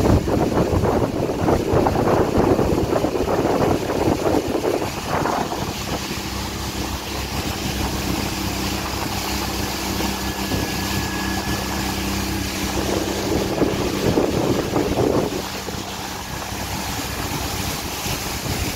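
Small motorboat's engine running steadily under way, with the rush and splash of water along the hull and wind buffeting the microphone. The water noise is loudest for the first few seconds and again briefly near the end.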